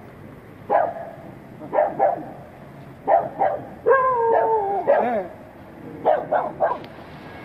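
Dogs barking, a string of short sharp barks, with a drawn-out whining cry about four seconds in that wavers and then falls.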